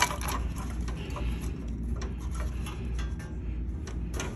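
Light clicks and taps of hands handling the phone and fixture, scattered throughout, over a steady low hum. A sharper click comes right at the start and another near the end.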